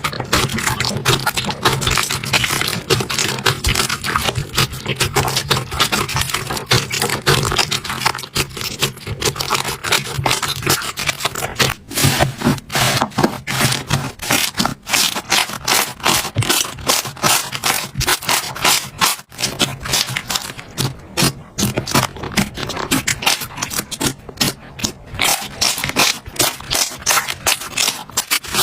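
Slime being squeezed and worked by hand close to the microphone, giving a dense, continuous run of crackling, popping clicks.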